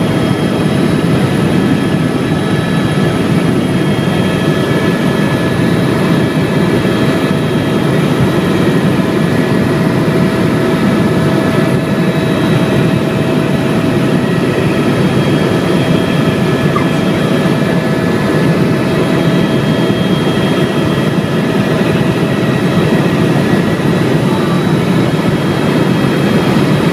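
Helicopter in flight: a loud, steady engine and rotor noise with a thin steady whine at several pitches above it.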